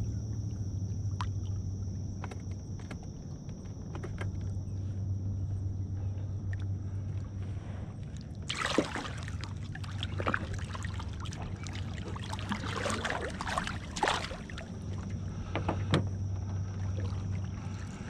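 Water splashing and sloshing at a small boat's side for several seconds, starting just before halfway, as a hand works in the water beside the line, over a steady low hum.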